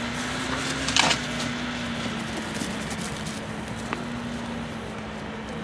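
Steady hum of the lure-coursing machine's motor as it drags the lure down the field, with a short loud burst of noise about a second in.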